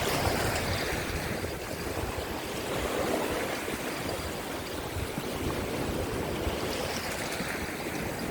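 Rough sea waves washing over and around shoreline rocks: a steady rush of water that swells up a few times.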